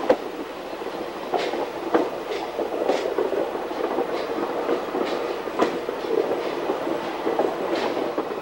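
Train rolling along jointed track: a steady rumble with the wheels clicking sharply over rail joints at uneven intervals.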